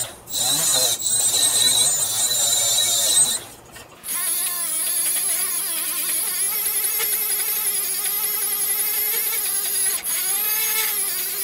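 Die grinder running at high speed, polishing the weld on a stainless steel sanitary tube. It stops briefly about three and a half seconds in, then runs on as a steady high whine, its pitch sagging for a moment near the end as it is pressed into the work.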